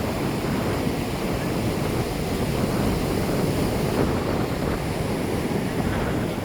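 Steady ocean surf on a beach, with wind rumbling on the microphone.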